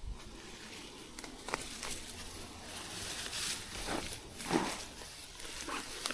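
Footsteps and rustling on a hiking trail: scattered soft scuffs over a faint outdoor hiss, with one louder scuff about four and a half seconds in.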